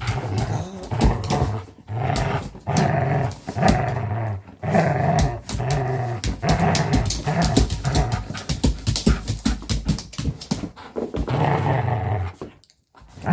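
Dog growling in short repeated bursts while playing with a toy, amid rapid sharp clicking and clacking that sounds like an old typewriter.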